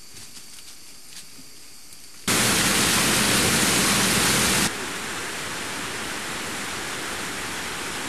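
A few faint clicks over quiet forest background. Then, about two seconds in, a loud, even rush of water from a rocky stream starts abruptly. It drops suddenly to a steadier, quieter rush of water about two seconds later.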